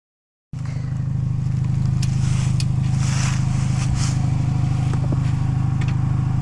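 A vehicle engine idling steadily, with a few light clicks and scrapes over it. The sound starts after a brief dropout of total silence at the very beginning.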